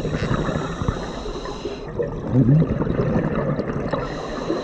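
Underwater sound of a scuba diver breathing through a regulator: exhaled bubbles gurgling and rumbling continuously, with a short rising warble about two and a half seconds in.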